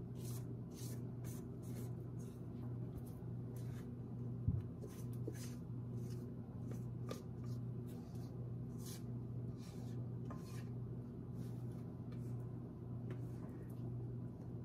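Thick cake batter sliding out of a tilted stainless steel mixing bowl into a tube pan, with many soft short scrapes and plops over a steady low hum. One dull thump about four and a half seconds in.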